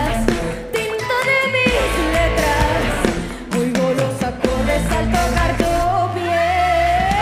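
Live pop music: a woman singing over a band with drums and bass, holding a long note that rises near the end.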